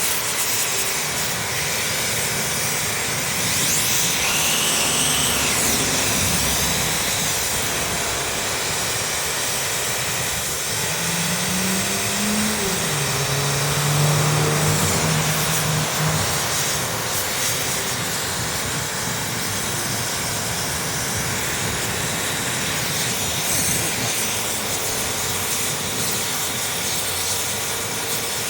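Steady rushing hiss of air and combustion from a clogged two-stroke aluminium silencer being burnt out, with air blown inside so the unburnt oil and carbon burn from within. A short low hum dips in pitch about halfway through.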